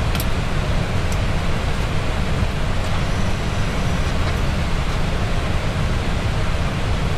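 Steady flight-deck noise of an Airbus A320 in descent: a constant rushing hiss over a deep rumble, with a couple of faint clicks in the first second or so.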